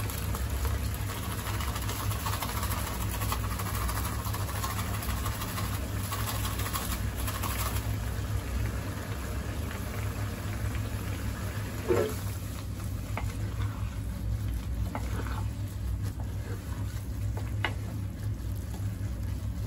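Thick paneer and fenugreek gravy bubbling in a non-stick pan at a simmer, over a steady low hum. A few sharp clicks come in the second half, the loudest about twelve seconds in.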